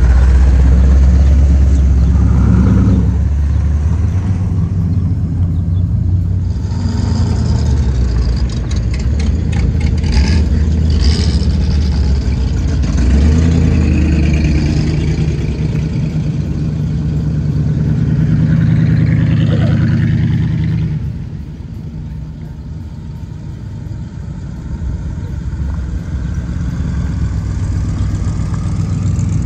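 Car and truck engines running nearby, revs rising and falling, as show vehicles pass. The sound eases off about two-thirds of the way through, then builds again.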